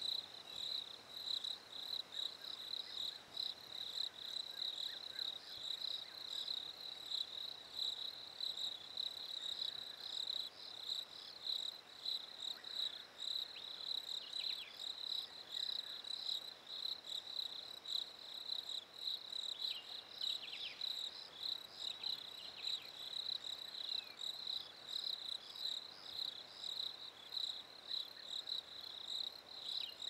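Crickets chirping in a steady, rapidly pulsing high-pitched chorus.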